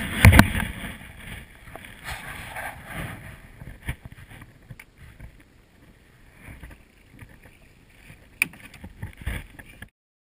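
Knocks and bumps on a small fishing boat's hull, with water sloshing, as a man on the bow hauls in a line with a hooked catfish. The loudest knocks come right at the start, with single sharp knocks later on; the sound cuts off just before the end.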